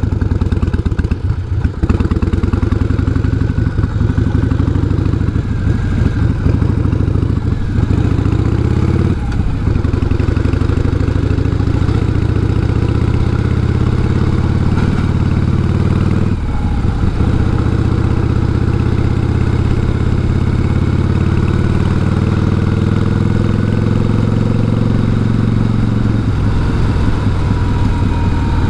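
Harley-Davidson Heritage Softail V-twin with a sidecar, running under way at road speed. There are brief breaks in the engine note, typical of gear changes, then a long stretch where the pitch rises steadily as it speeds up. The pitch drops back again near the end.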